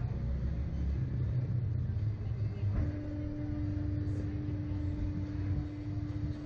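Steady low rumble, joined about three seconds in by a steady pitched hum that keeps going.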